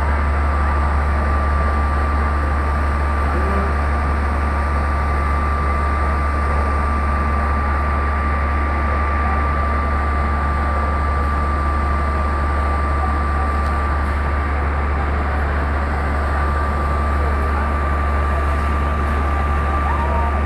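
Fire truck engines running steadily at close range: a constant deep rumble with a steady high whine over it.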